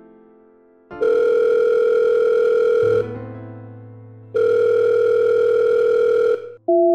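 Phone ringback tone: a steady electronic beep about two seconds long, sounding twice with a pause between, each fading away with an echo. A low drone of background music runs under the second ring, and a short two-note blip comes just before the end.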